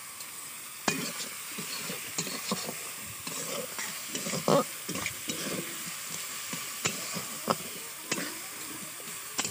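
Sliced onions sizzling in hot oil in a karahi, with a steady hiss, while a spatula stirs them, scraping and knocking against the pan in irregular strokes.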